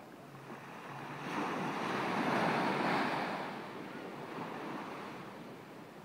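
Small surf breaking and washing up a sandy beach: one wave surges in about a second in, swells to a peak, then draws back.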